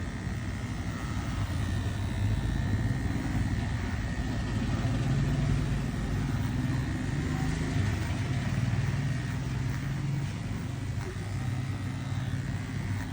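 Steady engine hum and road rumble of a moving vehicle, heard from on board.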